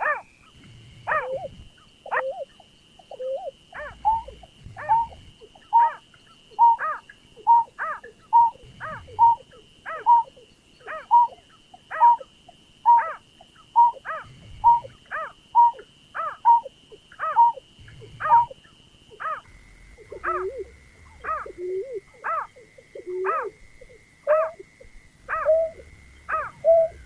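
Bird-lure (pikat) recording of a berkik/pekung/burcet call, looped: a short falling call repeated about once a second, over a steady thin high tone that drops to a lower pitch about two-thirds of the way through.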